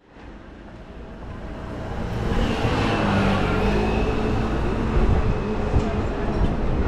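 A vehicle running, growing louder over the first two seconds, with a steady high-pitched squeal joining in about two seconds in.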